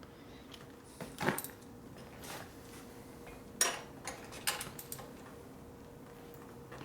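Scattered metallic clicks and clinks of a wrench working on metal, about half a dozen over several seconds, while a motorcycle's rear axle and its pinch bolt are being tightened. A faint steady hum runs underneath.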